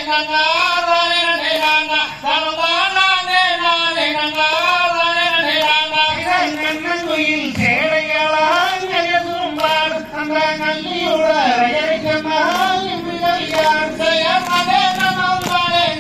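A sung Tamil folk song accompanying the Valli Kummi dance: one voice carries a wavering, sustained melody, with regular sharp beats under it.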